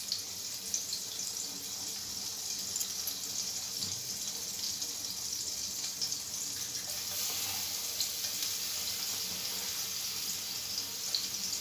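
Garlic sizzling in butter and oil in a frying pan: a steady hiss with small crackles.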